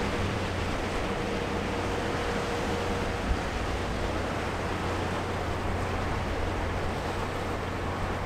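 Steady low rumble of a 1,000-foot Great Lakes freighter passing close, mixed with wind on the microphone and water churning along her hull.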